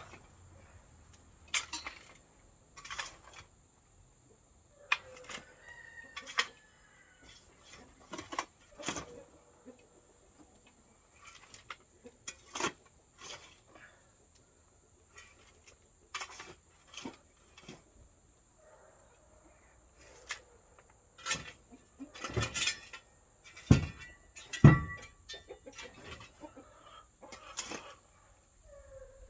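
Chickens clucking among irregular knocks and scrapes from work in a chicken yard, with two heavy thuds close together near the end.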